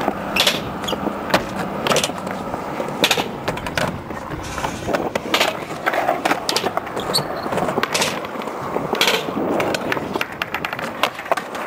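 Skateboard wheels rolling on concrete, with sharp clacks of the boards popping and landing several times.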